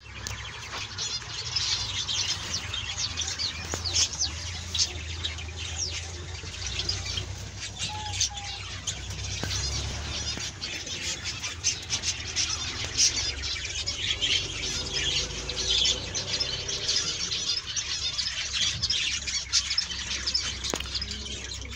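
Many small cage birds chirping and twittering continuously in an aviary, with scattered sharp clicks, over a low steady rumble.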